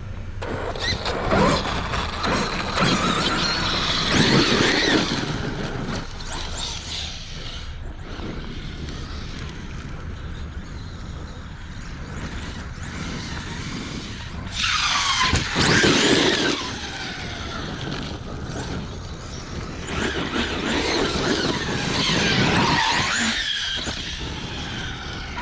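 Large-scale 30° North 5T electric RC truck running on 12S: its brushless motor whines in three hard bursts of acceleration, the pitch sweeping up and down between them.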